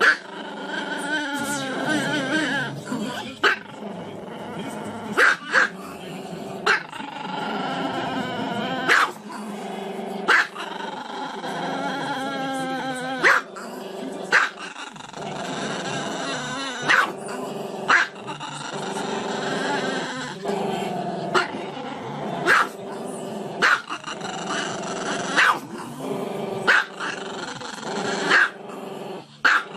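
A Chihuahua howling in long notes with a wavering pitch, broken about every second or two by short, sharp yips.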